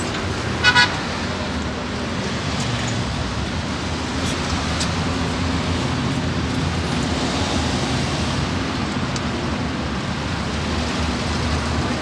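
Steady street traffic noise, vehicle engines running on the road. Two short, high beeps come close together just under a second in.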